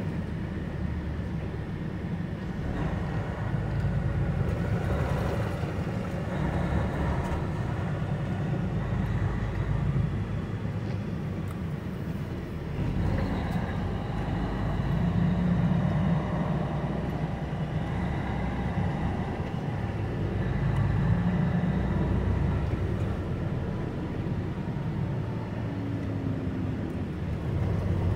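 Semi truck's diesel engine running with steady low rumble and road noise, the engine note swelling and easing a few times.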